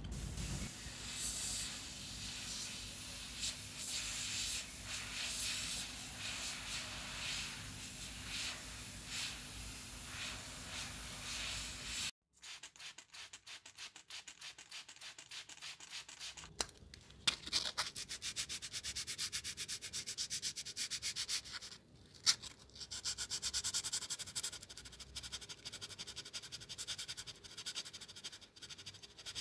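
Abrasive rubbing strokes, like sanding, on a model car's parts. The sound cuts off suddenly about twelve seconds in. After a brief silence it comes back as a quicker run of short scratching strokes, with a few sharp clicks.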